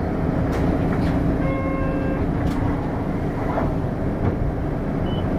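Hino LKG-KV234N3 city bus running, a steady engine and road drone heard from inside the cabin. A short electronic beep sounds about a second and a half in.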